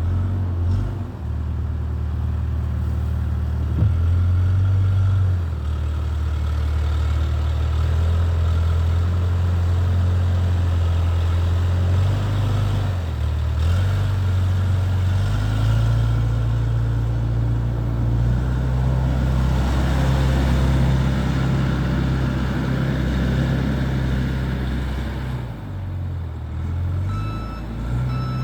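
XCMG SR740RU skid-steer loader's diesel engine running under load while clearing snow, its pitch dropping and rising several times as the machine works. A short beeping tone sounds near the end.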